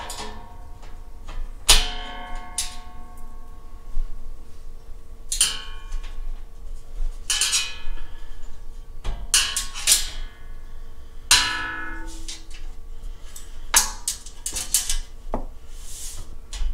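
Irregular metal knocks and clanks on the thin steel top of a welding table, about a dozen in all. Each leaves a brief metallic ring, as a screwdriver and countersunk screws work against the plate.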